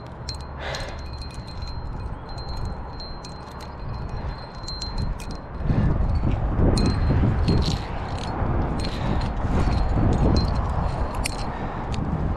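Trad climbing rack of cams and carabiners jingling and clinking on a climber's harness as he moves up the crack, with many small metallic clicks. A faint steady high tone runs through the first half, and a louder low rumble comes in the second half.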